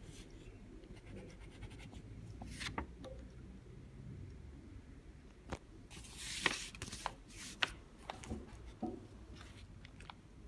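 Quiet desk handling noises: a ballpoint pen scratching on a paper card at first, then paper rustling, with a louder rustle and a few sharp clicks about six to eight seconds in.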